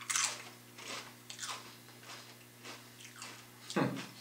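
A person bites into a tortilla chip loaded with guacamole and chews it, a sharp crunch at the bite followed by smaller crunches about every half second. A louder, deeper thud comes near the end.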